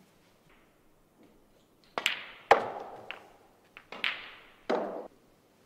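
Snooker shot: the cue tip strikes the cue ball, then a loud click as it hits the black, followed by a few more knocks as the balls run on and the black is potted. The knocks are separate and sharp, with a short ring after each.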